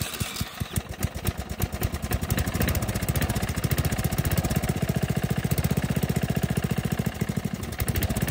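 Small engine of a Murray riding mower built for racing, running on a first test with a new carburetor and coil. Its firing beat quickens over the first couple of seconds and then holds fast and steady, dipping briefly near the end.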